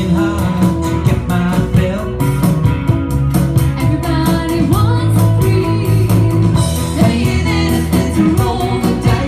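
Rock music with a sung vocal over electric guitar and drums, with a steady beat.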